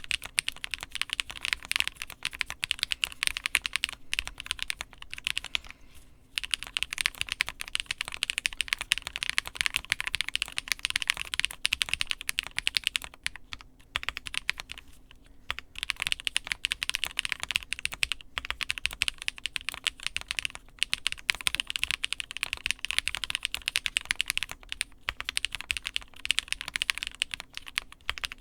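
Fast, continuous typing on a mechanical keyboard with Durock POM linear switches, a POM plate and POM Jelly keycaps: dense clicky keystrokes with a few brief pauses.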